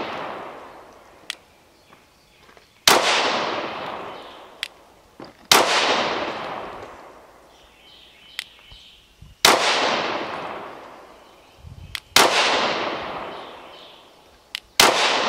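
Shadow Systems CR920X compact 9mm pistol fired five times, slow and deliberate, a few seconds between shots. Each shot is a sharp crack followed by a long echo that dies away over two to three seconds, with faint clicks in the pauses.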